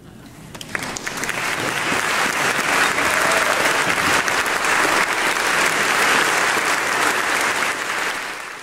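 Audience applauding: the clapping swells about a second in, holds steady, and cuts off suddenly near the end.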